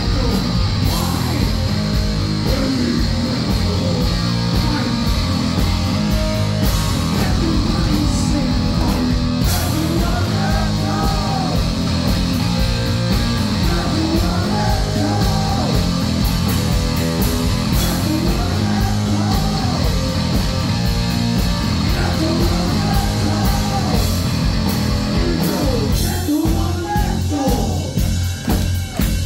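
Live heavy metal band playing loudly: distorted electric guitar, bass and a pounding drum kit, with a man singing over them. The sound thins out a few seconds before the end.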